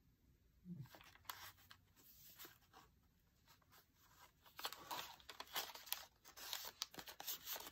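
Paper pages and cards of a handmade junk journal rustling and sliding as they are lifted and turned by hand, with small soft clicks and crinkles. It starts after a near-silent second and gets busier in the second half.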